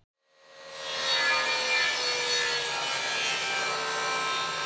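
TACKLIFE MTS01A 10-inch jobsite table saw cutting through a piece of trim on a 45-degree bevel, the blade running steadily through the wood. The sound comes in over about the first second.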